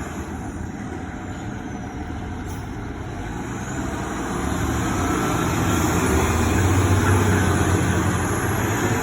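Heavy fire truck's diesel engine approaching, its low rumble growing louder from about four seconds in.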